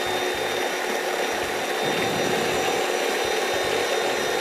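Electric kitchen mixer whipping fresh cream and sugar, its motor running at a steady whir with a faint held tone.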